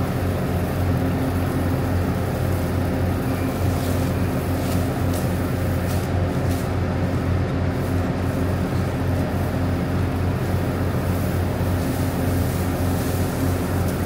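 A machine running steadily nearby: an even, unchanging low drone.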